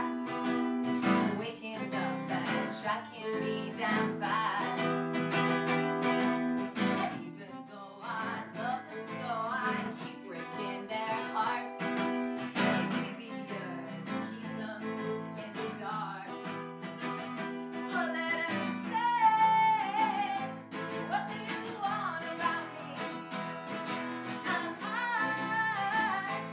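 Live acoustic guitar strumming a song, with a voice singing over it at times, most clearly in the second half.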